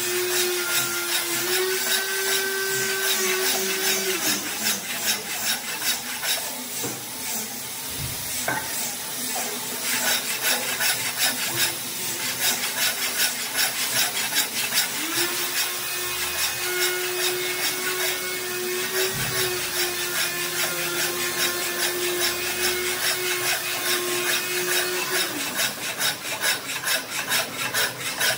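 A power tool working wood. Its motor hum rises as it spins up and falls away as it stops, once in the first few seconds and again for about ten seconds later on, over continuous scraping and rubbing against wood.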